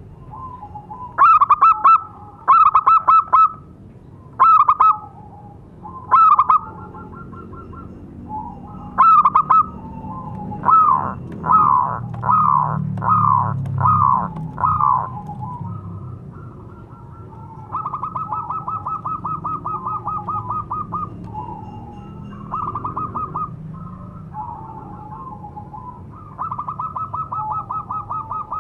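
Zebra dove (perkutut) cooing its calling song: bursts of short trilled notes, then long runs of rapid repeated notes, a call that draws other zebra doves to it.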